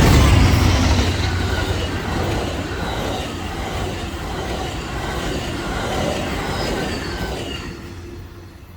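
A train passing at speed, its rumble and wheel noise fading steadily as it moves away, with faint high wheel squeals.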